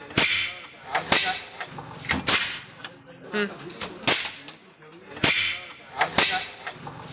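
Marble-stoppered goli soda bottles being popped open one after another: about six sharp pops, roughly one a second, each followed by a short hiss of escaping gas as the glass marble is pushed down into the neck.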